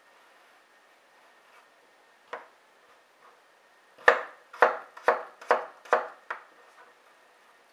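Santoku knife slicing a peeled raw potato on a wooden cutting board. There is a single knock of the blade on the board, then a quick run of six knocks, about two a second.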